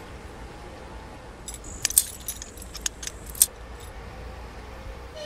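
Metal climbing hardware, carabiners and rope gear, clinking and jangling: a cluster of sharp clinks over about two seconds, the loudest near the middle, while the rope is being fastened.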